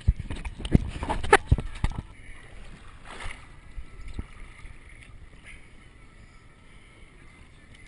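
A quick run of loud, irregular knocks and thumps over the first two seconds, then the steady hiss of wind and water around the boat.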